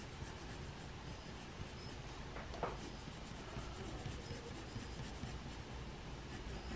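Pencil lead scratching faintly across drawing paper as lines are drawn.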